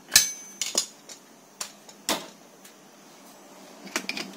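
Metal clicks and knocks of a Canon iR6000 copier's paper feed assembly being refitted into the cassette bay by hand. A sharp clack with a short metallic ring comes just after the start, a firmer knock about two seconds in, scattered lighter clicks between, and a quick run of clicks near the end.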